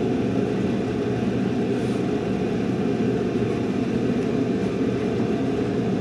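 Steady low rumble of background room noise, even and unchanging throughout.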